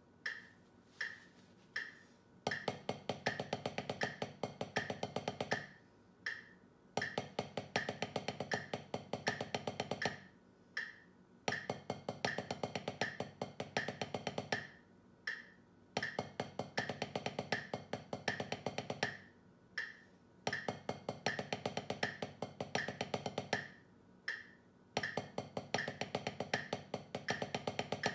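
Wooden drumsticks playing fast sticking patterns on a drum practice pad over a metronome clicking at 80 beats per minute. The sticking comes in runs of about three seconds, six in all, each followed by a short pause in which only the metronome ticks.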